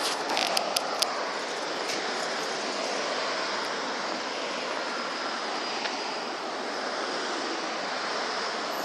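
Steady rush of wind and road noise from a car driving at high speed, with a few sharp clicks in the first second.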